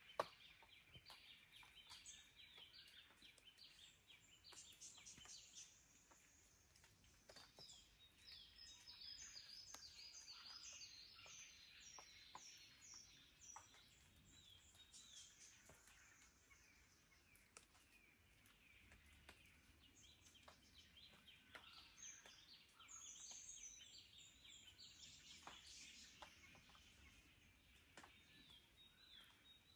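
Faint dawn chorus of Australian forest birds: many overlapping short chirps and quickly repeated whistled notes from several birds at once.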